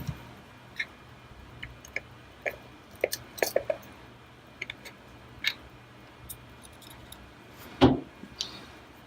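Scattered small clicks and taps of a pocket-knife screwdriver and screws on the plastic housing of an LTE antenna panel being taken apart by hand, with one louder knock about eight seconds in.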